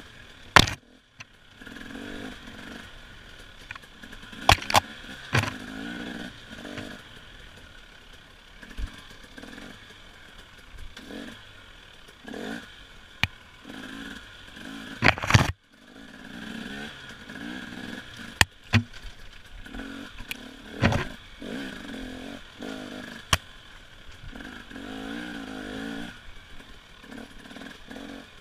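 Enduro dirt bike engine revving up and down again and again as it is ridden over the track, broken by a series of sharp loud knocks and clatter.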